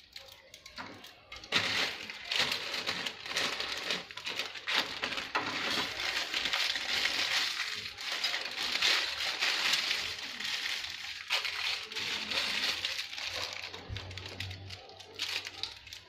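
Dry instant noodle cakes crackling and crunching as they are broken into pans at a gas stove. A plastic noodle packet crinkles along with it. The crackle is dense, with many small clicks, starting about a second and a half in and easing off near the end.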